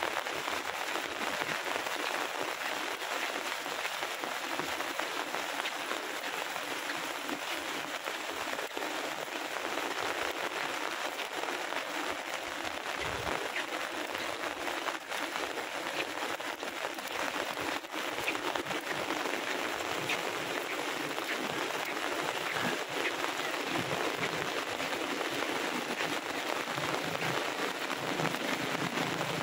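Heavy rain falling steadily, a dense even hiss of drops striking surfaces.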